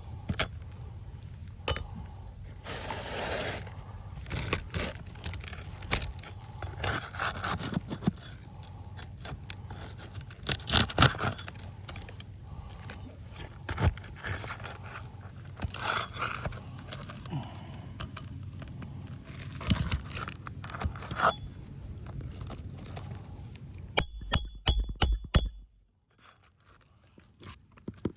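Scraping, rustling and clicking of hands and tools working on asphalt shingles, with a quick run of sharp metallic clinks near the end.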